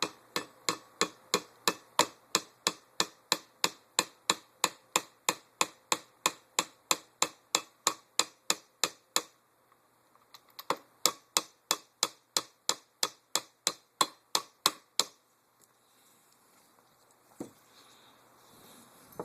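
Metal armorer's wrench striking a punch to drive the roll pin into a KWA LM4 airsoft upper's forward assist: quick, even taps about three a second, a short break, then another run of taps that stops about 15 seconds in, followed by one lone knock.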